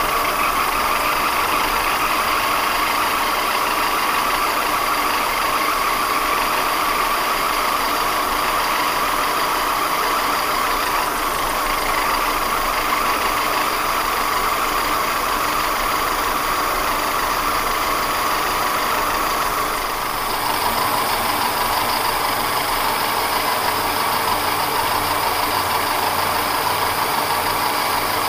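Vertical milling machine cutting under power feed: an extra-length half-inch end mill taking a side cut along a slot in a vise body, a steady motor and cutting sound. The sound shifts slightly about twenty seconds in.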